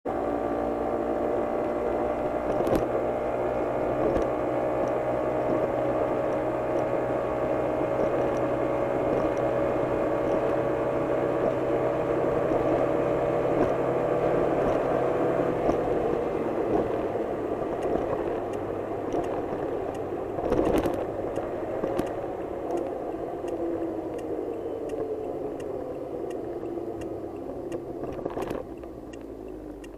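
Car interior noise picked up by a dashcam's built-in microphone: a steady engine and road hum at cruising speed whose pitch and level slowly drop in the second half as the car slows. A thump comes about two-thirds of the way in, with a few sharp knocks and faint regular ticking.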